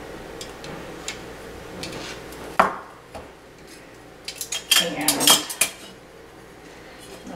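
Metal tongs and serving dishes clinking: one sharp clack about two and a half seconds in, then a quick run of clinks and rattles in the second half.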